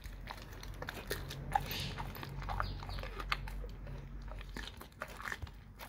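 A dog biting and chewing on a raw cow tongue, its teeth making irregular clicks and crunches as it gnaws at the meat.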